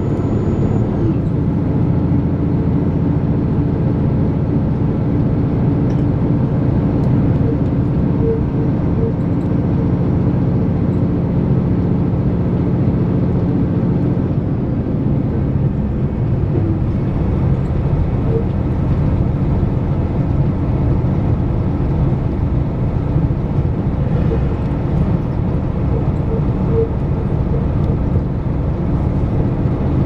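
Inside a KiHa 261 series diesel express railcar running at speed: a steady rumble of wheels on rail under the diesel engine's hum. The engine hum drops out about halfway through, leaving the running noise of the wheels.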